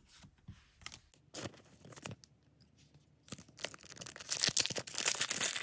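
Foil booster-pack wrapper handled with faint crinkles, then torn open about three seconds in: a dense crackling rip lasting a couple of seconds.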